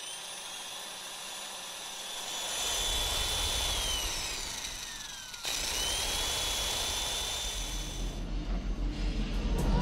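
Sound design for a channel intro: a rushing, jet-like whoosh with high whining tones over a low rumble that comes in about two and a half seconds in. The whines glide downward, the sound cuts off abruptly a little past halfway, then picks up again with a rising whine before the high end fades away.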